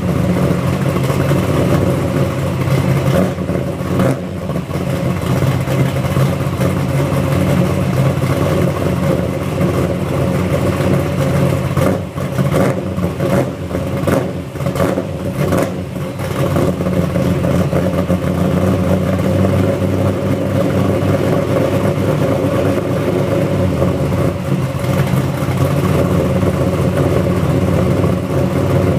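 A cammed LT1 383 stroker V8 idling through its exhaust as it warms up after a cold start at about 28 °F. The idle is steady, with a few brief dips and wavers near the middle.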